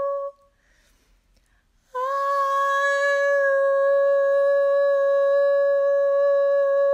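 A woman's voice humming one long, steady note, breaking off shortly after the start and coming back on the same pitch, with a slight upward slide into it, about two seconds in.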